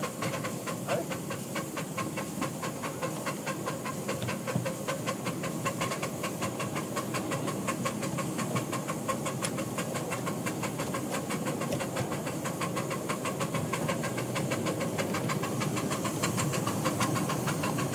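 Miniature steam locomotive working a train, its exhaust beating in a quick, even rhythm, with steam hissing from the open cylinder drain cocks.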